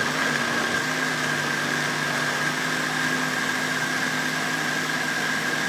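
Countertop blender running steadily while it blends a runny cake batter, its motor giving a constant whir with a steady high whine.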